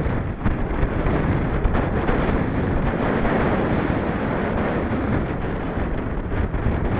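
Wind rushing over the microphone of a camera carried on a moving bicycle: a loud, steady noise with no break.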